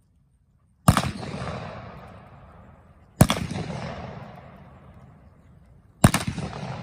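Three revolver shots of black-powder blanks, each followed by a long rolling echo that fades over about two seconds. The shots come about two and a half to three seconds apart.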